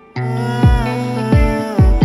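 Background music: sustained pitched instrument notes, some sliding in pitch, over a slow beat of deep drum hits.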